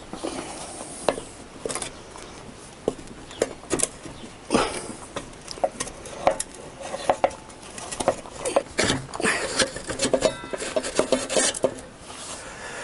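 Irregular metallic clinks and knocks of a motorcycle rear wheel, with its brake disc and loose wheel spacers, being worked by hand into the swingarm. The knocks come thicker in the second half, with a short metallic ring near the end.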